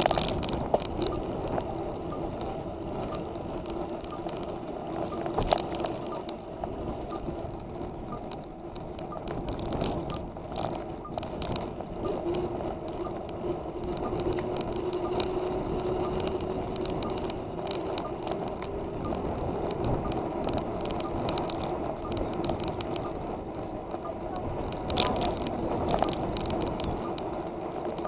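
A bicycle rolling along an asphalt street, picked up by a camera mounted on the bike. Steady tyre and drivetrain noise with a faint hum runs throughout, broken by scattered clicks and rattles from bumps in the road.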